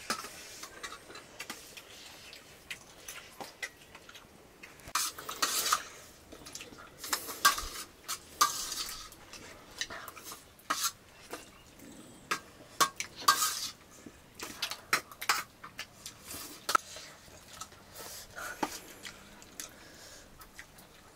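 Metal spoons scraping and clinking against steel plates as people eat, in scattered short strokes, some sharp and loud, most often in the middle stretch.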